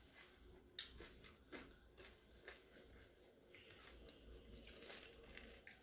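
Faint, scattered crunches and chewing as crisp pani puri shells are bitten and eaten.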